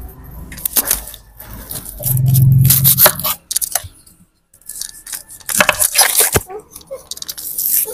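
Dry papery skins being torn and peeled off red onions with a small knife, in crackling rips that come in clusters. Earlier, a loud low rumble lasts about a second, followed by a brief drop to near silence.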